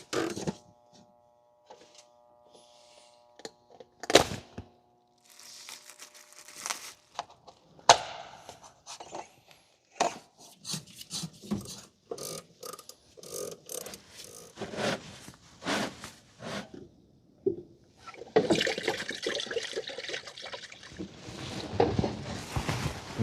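Hand work on a semi truck's fuel filter housings: scattered clicks, knocks and scrapes of tools and filter parts, with a faint ringing of several steady tones just after the first knock and a denser stretch of rustling noise about eighteen seconds in.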